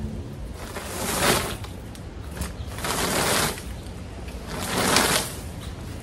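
Leaf rake dragged through dead leaves and dry grass: three sweeping strokes about two seconds apart.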